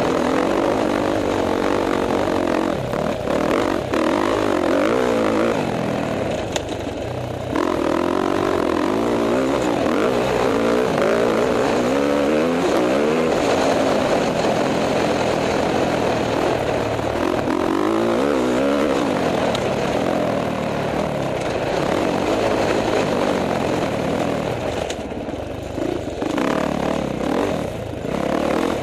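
On-board sound of a KTM 450 XC-F single-cylinder four-stroke dirt bike engine under hard riding, its pitch rising and falling as the throttle opens and closes. The throttle is backed off briefly a few seconds in and again near the end.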